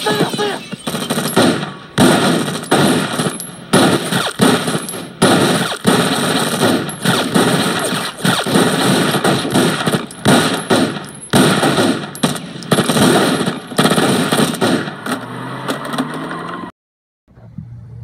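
A dense, irregular series of sharp bangs and cracks, several a second, that cuts off suddenly about seventeen seconds in. A brief silence follows, then a faint low steady tone.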